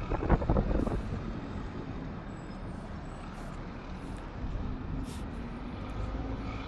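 Outdoor city traffic: a steady low rumble of passing vehicles, with a few brief knocks in the first second.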